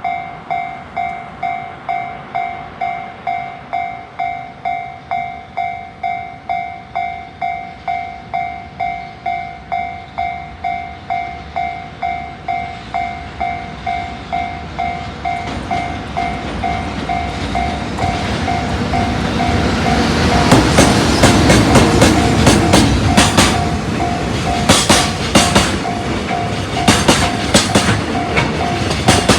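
Railway level-crossing warning signal ringing with a steady ding about twice a second. About halfway through, a freight train comes up and passes, its wheels clattering over the rail joints.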